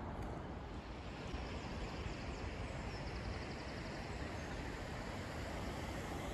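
Steady outdoor background noise: a low rumble with an even hiss over it and no distinct events.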